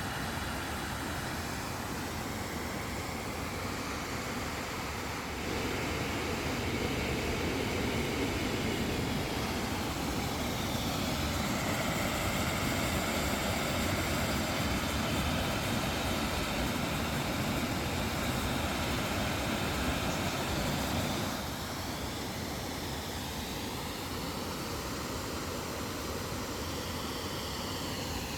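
Heavy rain pouring down, a steady dense hiss that swells louder for about fifteen seconds in the middle.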